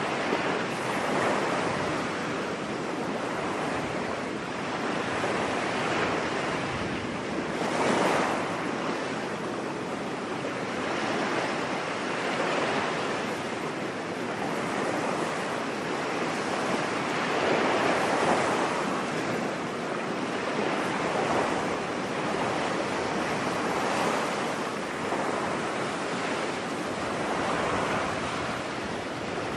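Ocean surf washing onto a beach: a continuous rush of waves that swells and falls back every few seconds, with the biggest surges about 8 and 18 seconds in.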